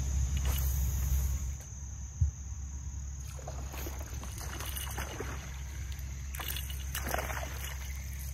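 Insects, crickets, trilling steadily and high over a low outdoor rumble that eases about a second and a half in, with a single sharp knock a little after two seconds.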